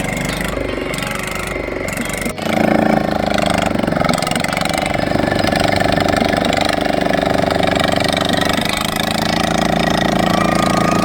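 Boat engine running steadily; about two and a half seconds in there is a brief break, then it runs louder. The engine noise is used to frighten a school of fish so they scatter into an encircling net.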